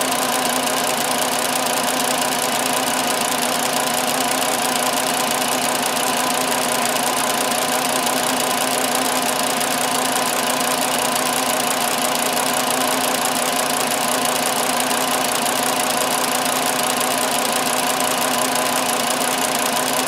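Volkswagen 2.5-litre inline five-cylinder engine idling steadily while it misfires on one cylinder, a fault the mechanic traces to the ignition coil's secondary winding, maybe open.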